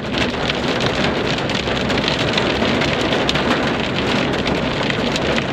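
Thunderstorm rain falling steadily, a dense hiss studded with many sharp drop hits.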